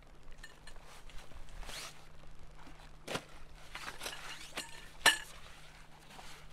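A fabric stuff sack rustling as it is handled and pulled off its contents, with small clinks and two sharp knocks, the louder one about five seconds in.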